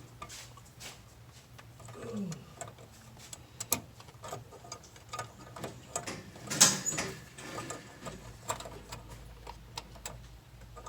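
Small plastic clicks, taps and rattles as a car's low-beam headlight bulb and its wiring connector are handled and pushed into place. There is a louder knock and scrape about two-thirds of the way through.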